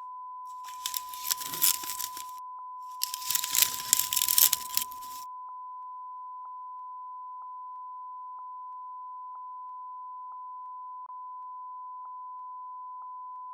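A Japanese sudare blind of bamboo and reed rustling and rattling in two bursts, the second ending about five seconds in. A continuous steady beep tone, laid over the sample as a watermark, runs under it and is all that is left afterwards.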